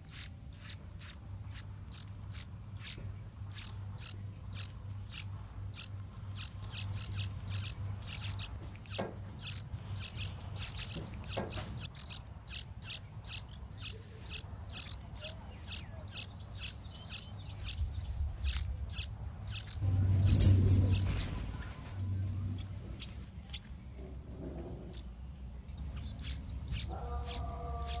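Songbird nestlings begging: a quick run of short, high chirps while a parent feeds them, over a steady low hum. About two-thirds of the way through comes a brief, louder rush of noise.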